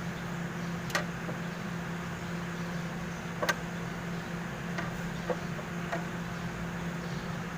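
A steady mechanical hum, with a few short, light clicks or knocks about one, three and a half, and five seconds in.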